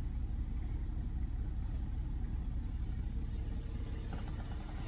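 Steady low rumble inside a BMW F15 X5's cabin, typical of the engine idling.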